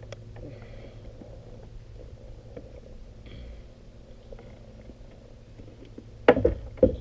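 Faint handling noises as an angler unhooks a smallmouth bass held in his lap, then two loud bumps about half a second apart near the end.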